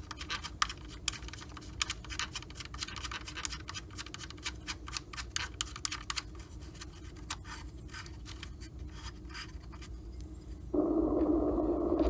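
Rapid, irregular clicking and scraping of small metal hardware being handled and fitted by hand: a mounting bolt being started on an engine-bay bracket. Near the end comes about a second and a half of a steady, louder whirring noise.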